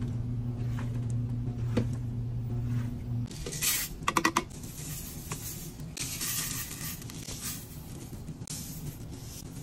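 A washing machine runs with a steady low hum. About three seconds in the hum gives way to a quick rattle of laundry scent beads dropping into an empty blender jar, followed twice by the hiss of more beads and powdered detergent pouring in.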